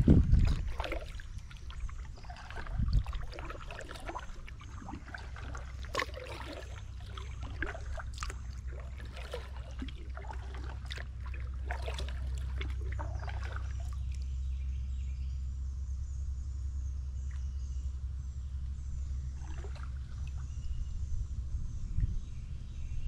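Kayak paddle strokes splashing and dripping water, with a couple of low thumps in the first few seconds. About halfway through the splashing stops, leaving a steady low rumble and faint high chirping.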